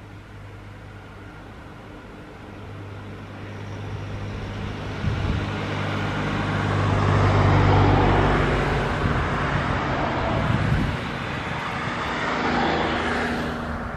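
A vehicle passing close by: a low hum and rushing noise that build to their loudest about eight seconds in, stay strong, then begin to fade near the end.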